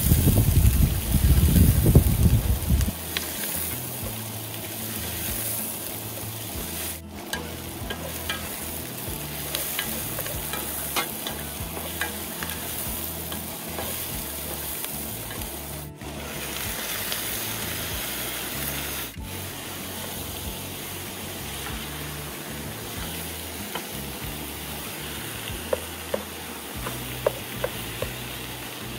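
Onions frying in a pot on a propane camp stove, sizzling steadily as a spatula stirs and scrapes through them. A loud low rumble covers the first few seconds, and a few sharp knocks come near the end.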